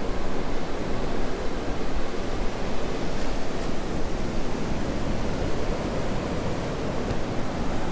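Surf breaking along the beach: a steady, even rush of waves, with some wind.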